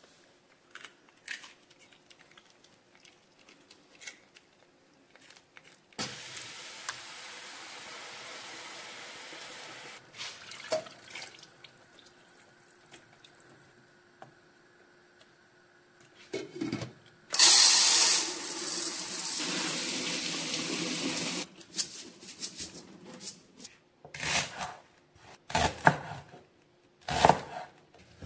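Water running from a kitchen tap, loudest for about four seconds a little past the middle, with a softer stretch of steady running noise earlier. Scattered clicks and knocks of kitchen work around it, ending in a few sharp knocks as chopped leeks are scraped off a wooden cutting board into a pot.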